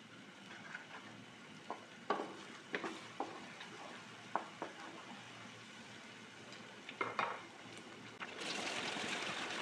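Wooden spatula stirring thick chilli paste frying in a non-stick wok, with scattered knocks and scrapes against the pan over a faint sizzle. About eight seconds in, a steady rush of water starts as a little water is poured into the paste.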